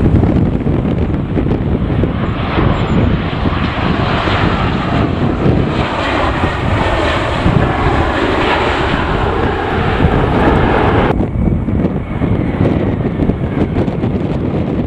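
Jet airliner's engines running loud and steady as it passes close on approach to land, with gusty wind rumbling on the microphone. The higher part of the roar cuts off suddenly about eleven seconds in.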